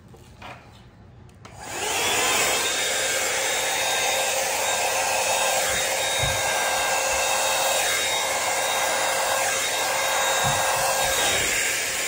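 Yiiho hair dryer switched on about a second and a half in, its whine rising briefly as it spins up, then running steadily with a loud rush of air and a high whine, blowing across wet acrylic paint.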